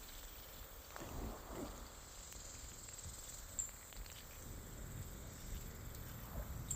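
Quiet outdoor ambience: wind rumbling unevenly on the microphone, with a faint steady high insect buzz.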